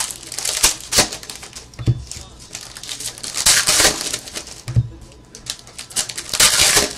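Foil trading-card pack being torn open and crinkled by hand, with light clicking and handling of the cards; two longer tearing rips come about three and a half and six and a half seconds in.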